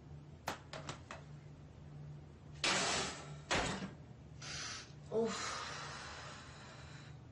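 Kitchenware being handled on a counter: a few light clicks about half a second in, then four louder scraping, rustling noises, the last fading out over about two seconds. A low steady hum runs underneath.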